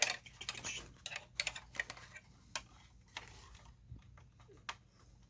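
Irregular small clicks and taps of hard plastic parts being handled and pushed into place while a canopy and roof frame are fitted onto a toy RC truck.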